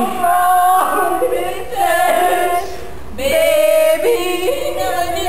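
A woman singing long held notes that step up and down in pitch, with a short break about three seconds in.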